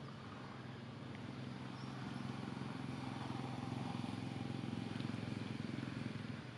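A low, steady engine hum that grows louder from about two seconds in and eases off near the end.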